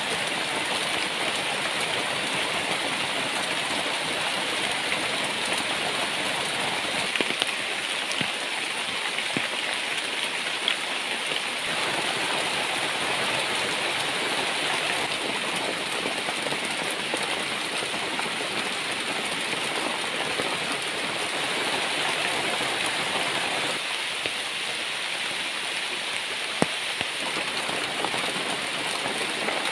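Heavy tropical rain pouring steadily onto open water and jungle, heard from under a leaf-thatched shelter, a dense even hiss with a few sharp taps.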